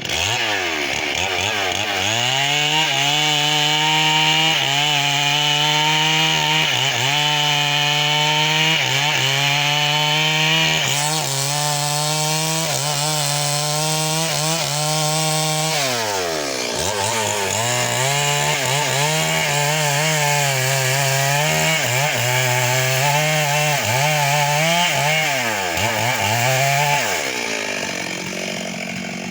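Stihl MS 382 two-stroke chainsaw running at high revs while cutting into a mahogany trunk, its pitch dipping and climbing again many times as the chain loads up in the wood. Near the end it drops back to a lower, steadier pitch.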